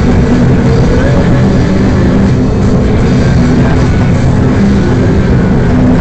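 Loud rock music with distorted electric guitar and drums.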